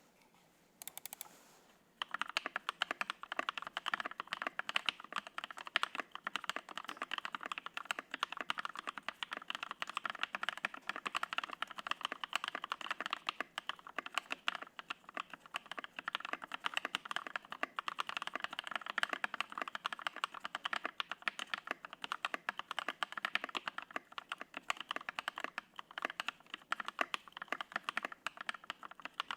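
Custom 65% mechanical keyboard with lubed and filmed Alpaca linear switches and KAT Alpha keycaps in a Discipline high-profile case, being typed on quickly and continuously, the keystrokes beginning about two seconds in.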